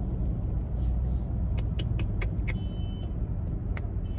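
Low, steady rumble of a car idling, heard from inside the cabin, with a quick run of sharp clicks about halfway through and one more near the end.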